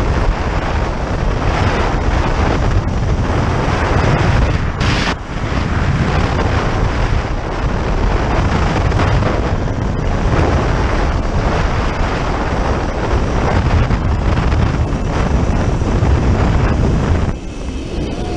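Heavy wind buffeting the camera microphone of a rider speeding down a zipline cable, dipping briefly twice.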